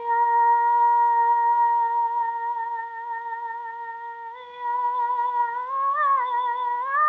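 A woman's singing voice holds one long note, steady in pitch for about four seconds, then swells louder and bends upward near the end.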